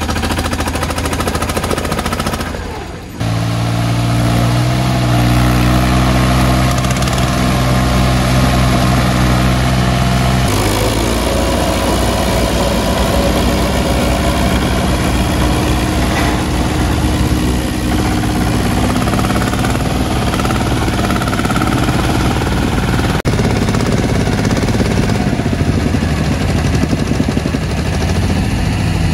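Mini tractor diesel engines running hard under load, a steady clattering drone as a VST Shakti VT 224 1D pulls a mud-stuck Escorts Steeltrac 15 on a tow strap. The engine note changes abruptly about three seconds in and again about ten seconds in.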